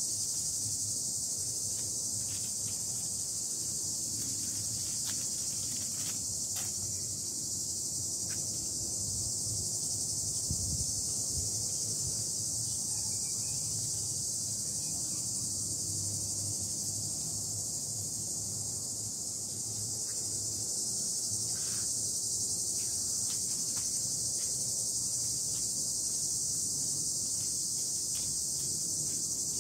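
A steady, high-pitched chorus of insects that never breaks, with a few faint clicks here and there.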